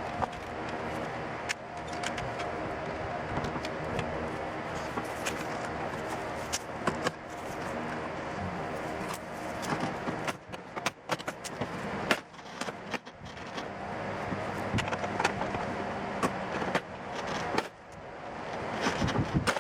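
Hand tools and parts clicking, knocking and scraping as a pickup truck's door is taken apart, with a cluster of sharp knocks about halfway through. A steady mechanical hum runs underneath.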